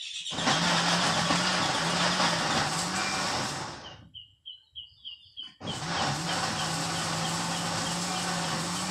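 Electric kitchen blender running in two bursts of about three and a half seconds each, with a pause of about two seconds between them, blending ingredients coarsely with water.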